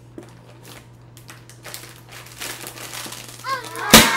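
A foil surprise balloon crinkling in the hands as it is blown up through a straw, then bursting with one loud pop near the end.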